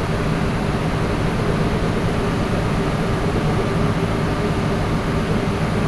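Compressor motor running with a steady hum, holding several low tones at an even level.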